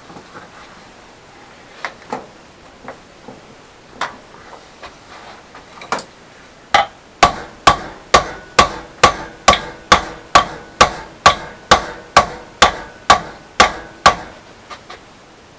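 A hammer striking a solid steel rod to bend it into shape. It opens with a few scattered light taps, then a steady run of about seventeen hard, ringing metal-on-metal blows at about two a second, then a couple of light taps near the end.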